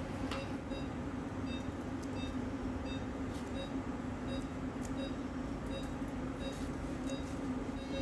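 Steady low hum of equipment in an angiography suite. Over it come faint short high beeps repeating about one and a half times a second, the pulse beep of a patient monitor.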